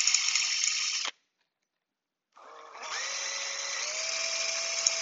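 A cordless drill spins a coarse conical sharpening stone inside a hollow mortising chisel, grinding the chisel's inner bevel: a steady motor whine. It cuts off about a second in, and after about a second and a half starts again, rising in pitch as it comes up to speed.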